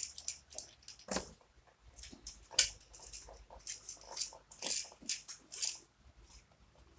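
Irregular soft clicks and rustles of small plastic Beyblade parts being handled, with one sharper click about two and a half seconds in.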